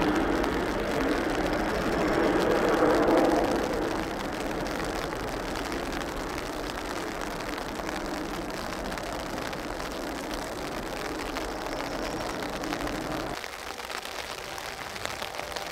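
Twin-engine jet airliner climbing away after takeoff. The engine rumble is loudest in the first few seconds, then fades to a steadier, weaker roar, which is cut off about 13 seconds in, leaving quieter open-air background.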